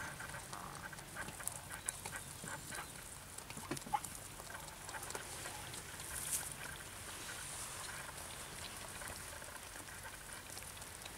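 Kitten lapping milk from a bowl, faint irregular wet clicks, with small rustles in the straw.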